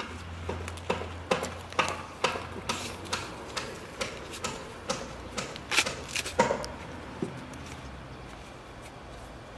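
Green husks being torn and peeled off fresh ears of corn by hand: a series of crisp rustling tears, about two a second, that thins out after six or seven seconds.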